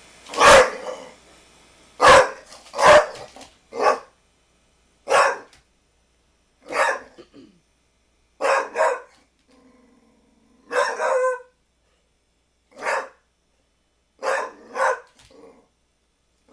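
American Pit Bull Terrier barking: about a dozen loud barks, singly and in quick pairs, one to two seconds apart.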